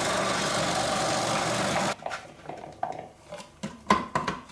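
Small electric food processor running with a grating disc, shredding carrot chunks with a steady whirr, which cuts off abruptly about two seconds in. After that come scattered sharp plastic knocks and clicks as the processor's feed tube and lid are handled.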